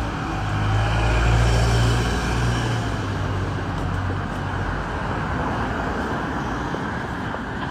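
A London taxi drives past close by, its engine hum and tyre noise swelling and fading over the first three seconds, then steady city traffic noise.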